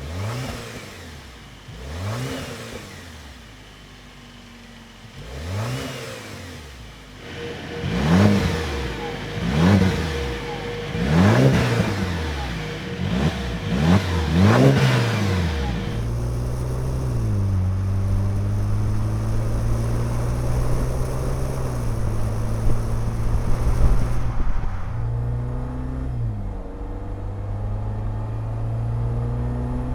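Jeep Wrangler JL's 2.0L turbocharged four-cylinder engine through a Magnaflow Street Series stainless cat-back exhaust, revved about eight times in quick blips, each rising and falling in pitch. It then runs at a steadier note that shifts a little, with one brief rev near the end.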